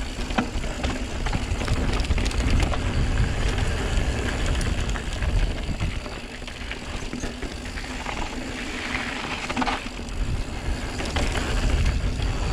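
Santa Cruz Megatower mountain bike descending fast on a packed dirt trail: tyres rolling and crunching over loose gravel, with short clicks and rattles from the bike over bumps. Wind buffets the microphone throughout as a low rumble.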